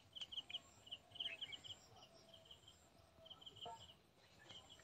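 Faint outdoor ambience: an insect chirping in short rapid groups of three or four high pulses, about two groups a second, with a few faint bird calls.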